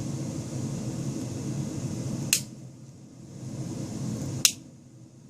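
Two sharp clicks about two seconds apart, typical of Swiss Army knife blades snapping shut, over a steady low room hum.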